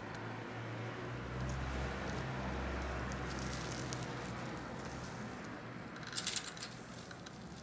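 Shirt sleeve brushing close to the microphone, rustling over a low hum, then a few quick clicks about six seconds in.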